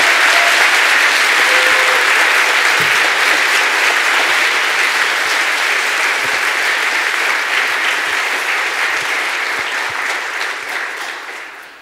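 Large audience applauding: a long, steady round of clapping that dies away near the end.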